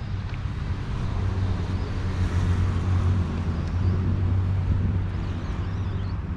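A motor vehicle passing in street traffic: a low engine hum and tyre noise swell to a peak two to three seconds in, then ease off.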